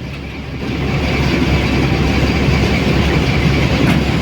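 Diesel-electric locomotive's engine running close by, a steady low rumble that grows louder about a second in and then holds.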